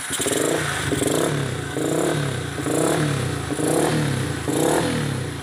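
Yamaha Vixion's single-cylinder four-stroke engine running with its throttle blipped repeatedly, the revs rising and falling about once a second.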